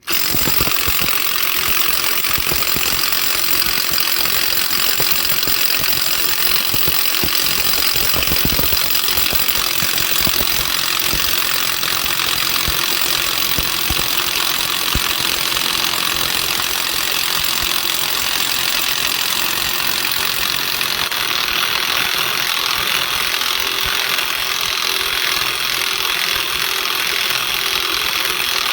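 Loud, steady mechanical running noise with dense ticking underneath, starting and cutting off abruptly.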